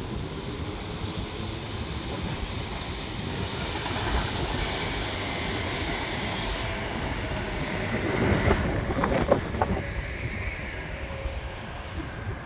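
Double-deck passenger train running on the tracks below: a steady rumble of wheels on rails that grows louder about four seconds in, with a run of sharp clicks and clatter about eight to ten seconds in.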